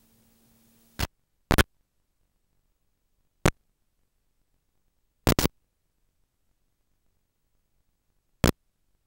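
Short crackles of radio static from an analog 5.8 GHz video link's received audio, about five of them at uneven gaps with dead silence between. A faint low hum sits under the first second.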